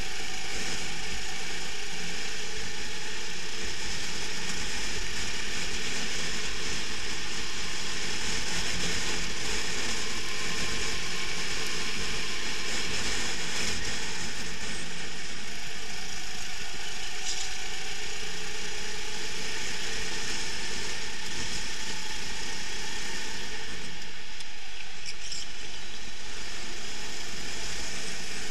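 Rental kart's engine running at race speed, heard through a camera mounted on the kart, as a constant rattling mechanical buzz with the engine note rising and falling a little.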